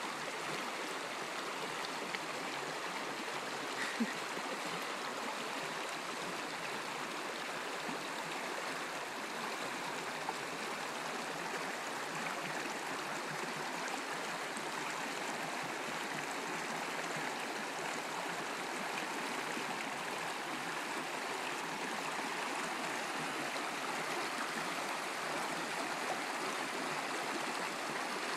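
Shallow creek water running steadily over rocks in small white riffles.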